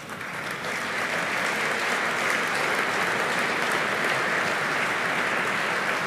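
Audience applauding: the clapping swells over the first second, then holds steady.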